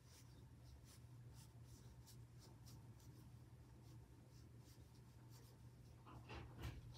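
Faint scratchy strokes of a Chinese ink brush on paper: a run of short dry-brush dabs, with a few louder strokes about six seconds in. A faint low hum lies underneath.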